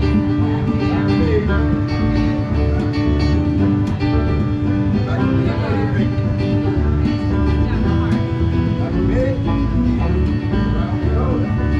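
Acoustic string-band music in a bluegrass style, with plucked guitar to the fore, playing steadily.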